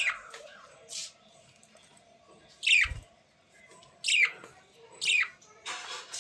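A bird giving short, sharp calls that fall steeply in pitch, four of them spaced irregularly, with a couple of brief hissing noises in between.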